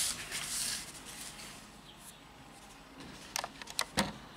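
LEGO plastic bricks being handled and snapped together, a rustling, clicking clatter in the first second. Near the end come a few sharp plastic clicks and one louder knock as pieces are set down on the tabletop.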